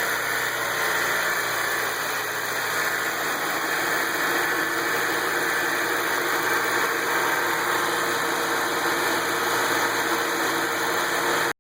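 Chevrolet Fun 1.4 engine running steadily at idle; the owner says it has begun idling high in neutral and making a knocking noise. It cuts off suddenly near the end.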